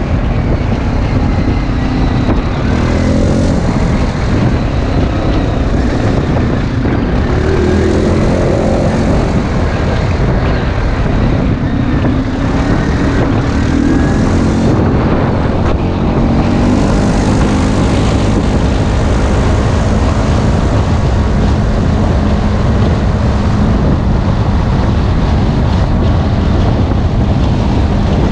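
ATV engines running hard off-road, with a steady low rumble and the pitch rising and falling several times as the throttle is worked.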